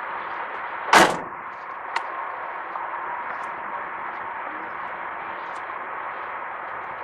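A 2015 Chevy Silverado's tailgate shut with one loud metal bang about a second in, followed by a faint click a second later, over a steady background hiss.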